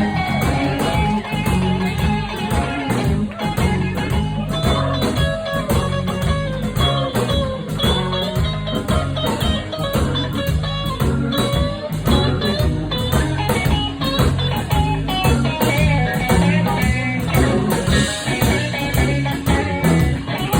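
Blues band playing live: electric guitar lead lines over bass and drums with a steady beat.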